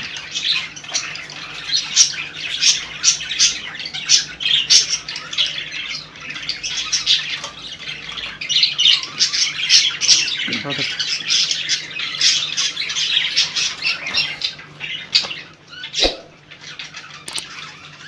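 A small bird held in the hand squawks shrilly and rapidly over and over: distress calls while a diseased, ingrown feather mass is being picked out of its wing. A single sharp click near the end.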